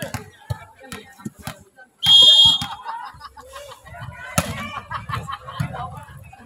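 A referee's whistle blows one short, shrill blast about two seconds in, the loudest sound. Scattered voices run through it, with a single sharp smack about four seconds later.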